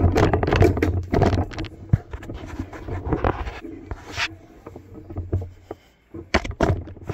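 Handling noise close to a phone microphone: irregular rubbing, scraping and rustling with a low rumble, a sharp knock about two seconds in and a few more knocks near the end.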